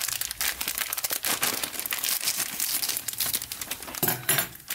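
A foil-lined plastic snack packet crinkling as it is cut open with large steel scissors and handled: a dense run of sharp crackles.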